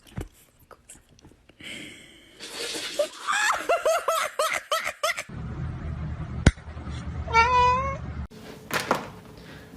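A cat calling in a quick run of short, repeated chirping meows, followed a few seconds later by a short wavering trill.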